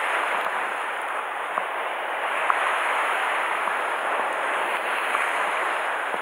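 Sea surf washing and churning against the rocks at the foot of the shore: a steady rushing of water, with a few faint clicks.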